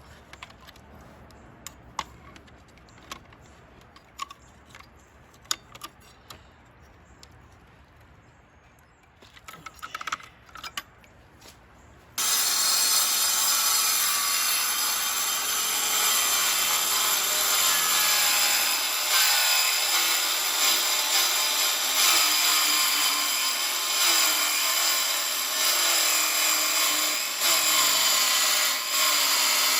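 A few light clicks and knocks, then about twelve seconds in a power tool starts abruptly and runs steadily and loudly, cutting, with a wavering pitch.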